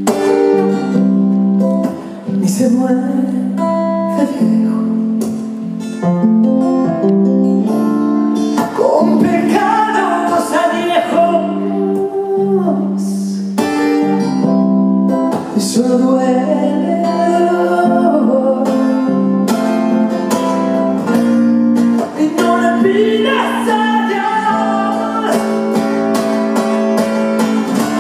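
Acoustic guitar played under a woman's singing voice, with a melodic vocal line over held notes.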